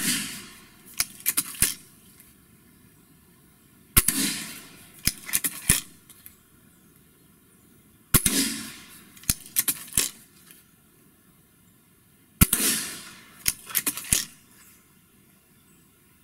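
Gamo Swarm Magnum .22 air rifle fired four times, about four seconds apart. Each shot is a sharp crack that trails off over about a second, and two or three sharp clicks follow as the break barrel is opened and closed to recock.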